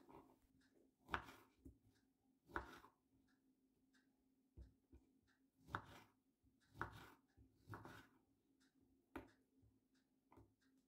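Kitchen knife slicing through an orange half, the blade tapping on a wooden cutting board with each cut: faint, separate knocks, about seven in all, a second or so apart.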